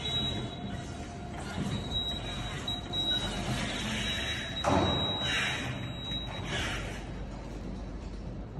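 Crown TSP6500 battery-electric turret truck driving across a warehouse floor, with a steady high whine for the first half and a louder noisy burst a little past halfway, followed by a few shorter hissy bursts.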